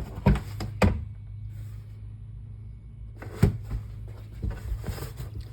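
A few sharp clicks and knocks from handling the trailer's interior fittings, about a second in and again near three and a half seconds, over a steady low hum.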